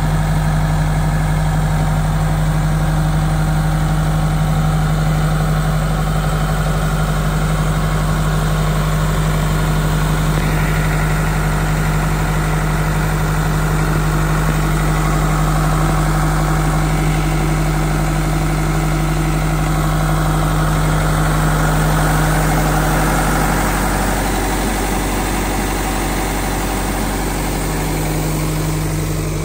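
Trailer-mounted 420 cfm road compressor running at a steady idle, a constant low engine hum.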